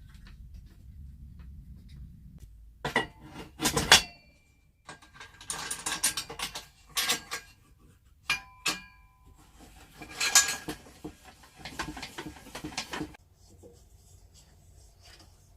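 Metal parts of a pillar drill being handled and fitted together during assembly. From about three seconds in there are irregular clinks, knocks and rattles, a few with a short metallic ring, and they stop near the end.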